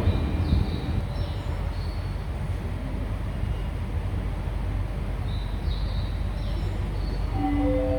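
Steady low rumble of a Toei 5300 series subway train at a station platform, with a few faint high squeals. A chiming station melody starts near the end.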